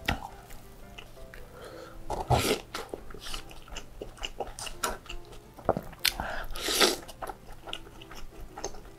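Close-miked noodle slurping and chewing: bakmie noodles sucked in with wet slurps, the loudest about two seconds in and again around six to seven seconds, between smaller chewing and mouth noises.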